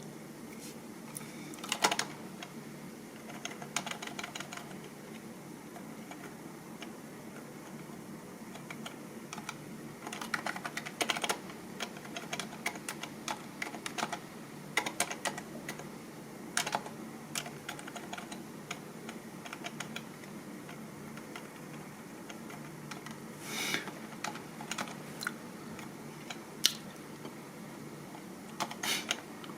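Typing on a computer keyboard: irregular runs of key clicks broken by short pauses, with a few louder single key strikes. A steady low hum runs underneath.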